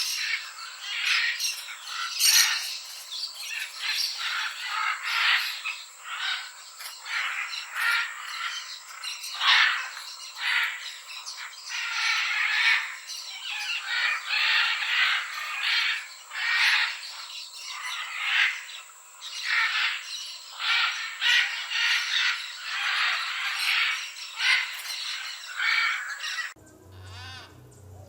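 A flock of parrots squawking over and over, the calls crowding on each other, over a steady high-pitched whine. The calling cuts off abruptly near the end.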